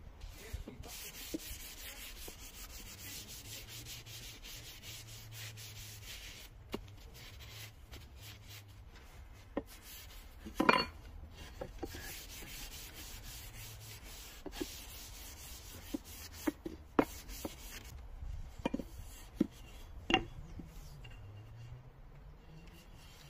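A cloth rubbing over a wooden axe handle, with scattered light knocks and taps from handling the axe; the loudest is a short clink about eleven seconds in.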